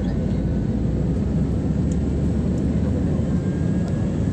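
Airliner cabin noise in flight: a steady, even drone of the engines and rushing air, strongest in the low range, heard from a window seat.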